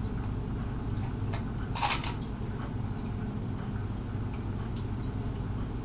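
Makeup pencils clicking against each other in a cup as one is picked out, with a louder clack about two seconds in. Under it runs a steady low hum and faint water trickle, like an aquarium's pump.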